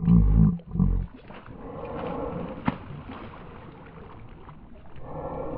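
A hooked giant snakehead thrashing and splashing at the water's surface beside a boat. A loud, low-pitched sound ends about a second in, and there is a single sharp click midway.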